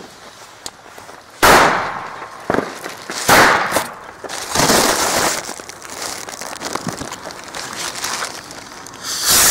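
Fireworks going off: a loud bang about a second and a half in, a smaller one and another loud bang over the next two seconds, then a stretch of hissing crackle and scattered small pops, and a longer loud hissing burst near the end.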